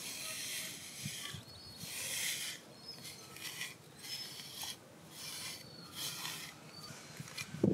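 Metal-pinned grooming brush raked through a husky-malamute's thick double coat in repeated strokes, about one a second, each a short scratchy rasp. The brushing is pulling loose undercoat out of a shedding coat.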